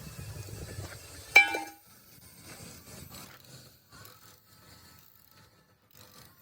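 A single sharp metallic clink about a second and a half in, ringing briefly, over a low rumble that dies away as it strikes. After it come faint scattered knocks and rattles of metal parts being handled.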